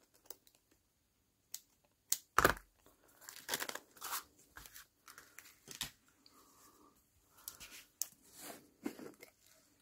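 Cellophane plastic bag crinkling and rustling as it is handled, with scattered sharp clicks and one louder knock a couple of seconds in.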